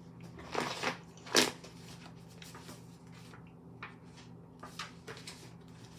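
Tarot cards being handled and shuffled: a brief rustle, then a sharp slap of cards about a second and a half in, followed by a few light ticks.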